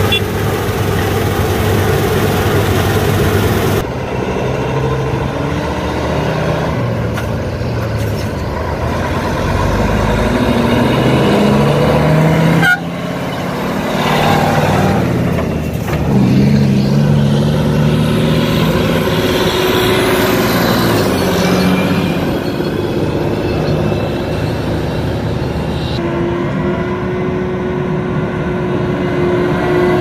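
Heavy diesel vehicle engines driving past, cut abruptly several times: a Tatra grain truck pulling away with its engine note rising and falling, then a New Holland combine harvester's engine running steadily as it approaches.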